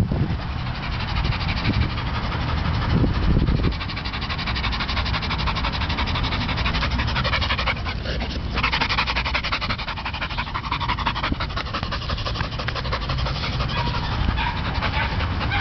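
A dog panting close to the microphone, mixed with steady rubbing and handling noise as a hand strokes its fur next to the camera.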